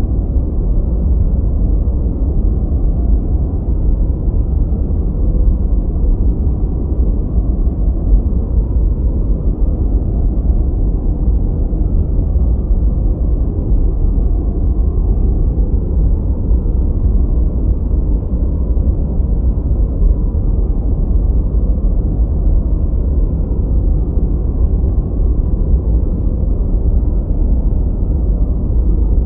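Steady deep rushing noise, a muffled low-pitched noise track with almost no high hiss, played as a 'white noise' study or sleep sound.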